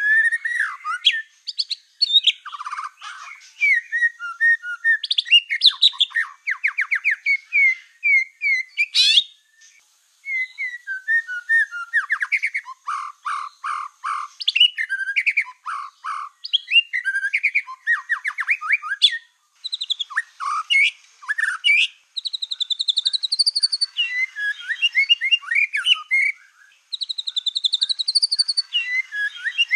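Black-tailed white-rumped shama (murai batu) in full song: a varied run of rapid trills, quick repeated chips and clear whistles, in phrases broken by brief pauses.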